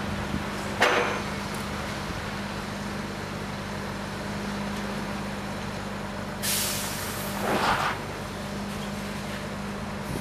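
Heavy diesel engine running steadily with a low hum, with short bursts of compressed-air hiss from air brakes: one about a second in and two more, the loudest, about two-thirds of the way through.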